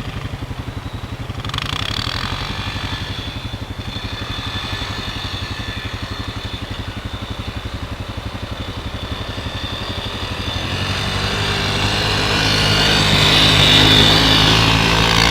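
Small off-road vehicle engine running, steady at first, then revving harder and growing louder from about eleven seconds in.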